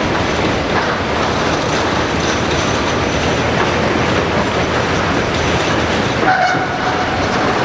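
Komatsu PC228 hydraulic excavator working in rock: a steady, loud din of the running machine with continual clanking and clatter, and a brief squeal about six seconds in.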